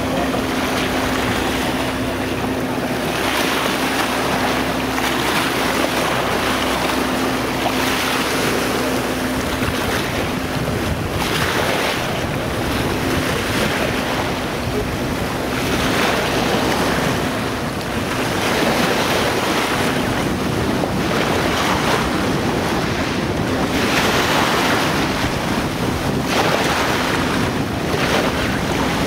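Wind buffeting the microphone over choppy sea water, with waves washing in surges that swell and ease every couple of seconds. A faint steady low hum runs under it for roughly the first half.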